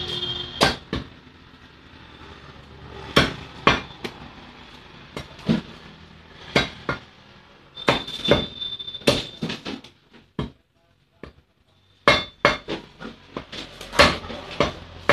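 Heavy meat cleaver chopping a whole chicken into pieces on a wooden stump chopping block: sharp, irregular chops, many in quick pairs, with a short lull about ten seconds in.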